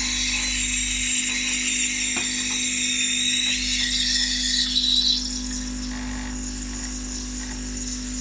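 Home espresso machine's pump running steadily as it pulls a double shot, a low hum under a high whine and hiss. The whine fades away about five seconds in, leaving the hum.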